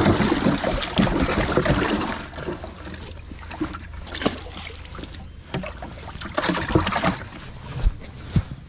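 Water splashing in a bass boat's livewell as a bass is put in among the other fish, followed by scattered handling clicks and knocks. Near the end the livewell lid knocks shut.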